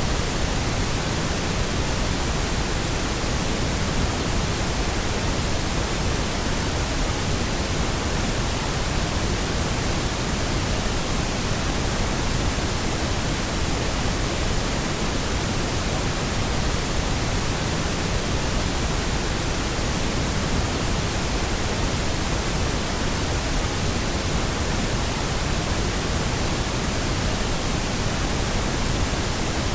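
Pink noise: a steady, even hiss across the whole range, unchanging throughout.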